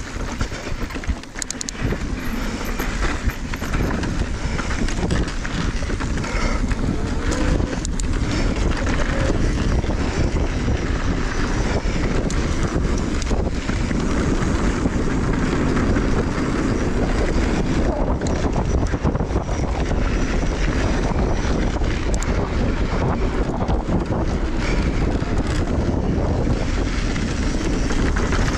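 Mountain bike riding fast down a dirt trail: wind buffeting the microphone over the hum of knobbly tyres rolling on dirt and across a wooden berm about halfway through, with scattered clicks and rattles from the bike over rough ground.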